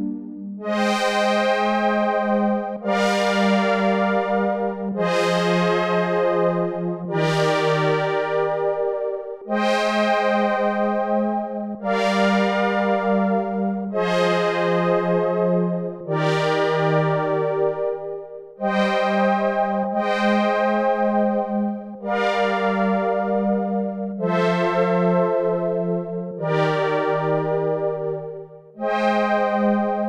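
Korg Minilogue XD four-voice analog polysynth playing a Prophet-10-style patch: a slow progression of sustained chords, a new one about every two seconds, each starting bright and growing darker as it holds.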